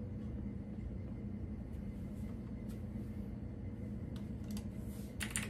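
Steady low room hum with a few faint scattered clicks, then a quick run of computer keyboard keystrokes near the end.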